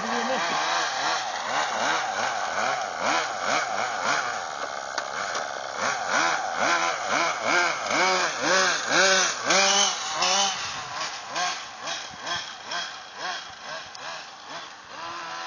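1:10 scale RC car's motor revving in quick throttle blips, its pitch rising and falling about twice a second. The blips are loudest around the middle.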